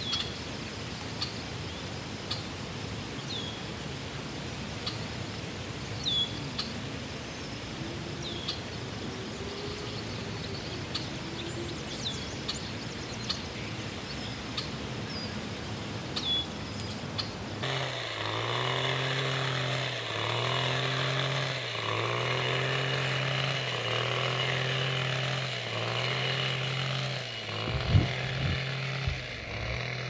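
Outdoor ambience with a short, high falling chirp repeating every second or two. About two-thirds of the way through it gives way abruptly to a small engine's hum that swells and dips about every second and a half, with a few knocks near the end.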